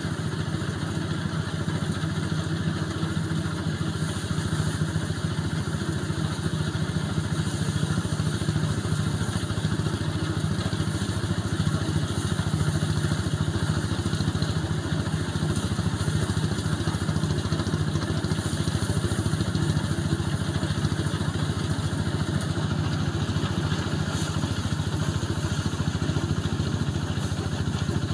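Quick QH-11 Series combine harvester running steadily while harvesting rice, its engine holding an even pitch with a fast, fine rattle.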